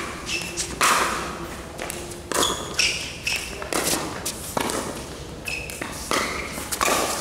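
Pickleball rally: paddles striking a plastic pickleball in quick succession, with the ball bouncing on the court. Each hit is a sharp pock, coming about once a second or faster, echoing in a large indoor hall.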